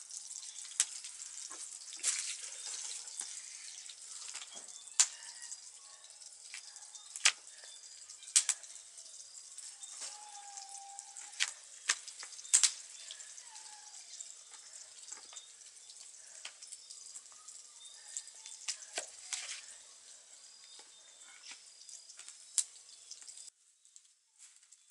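Chicken sausages frying in oil in a pan over a wood fire: a steady sizzle, with sharp clicks and taps scattered through it. The sizzle drops away near the end.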